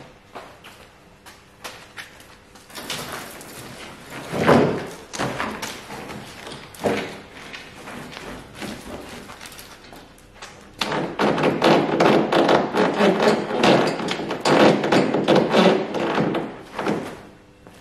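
Handling noise as lifting gear is rigged on a fibreglass boat hull: scattered knocks and a loud thud about four and a half seconds in, then a busy stretch of rustling and clattering from about eleven to seventeen seconds.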